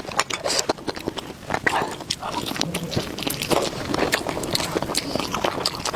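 A person chewing and biting food, with many irregular sharp clicks and crunches and wet mouth sounds.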